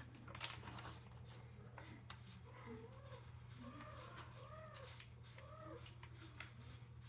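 Faint animal calls: a series of short pitched cries that rise and fall, starting about two and a half seconds in, over a steady low hum and light rustling of a paper package being handled.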